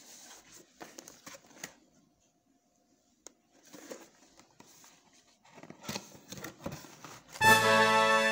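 Cardboard toy box being handled and opened: light scraping, rustling and small knocks of the card. About seven seconds in, a loud, steady electronic tone starts and runs on.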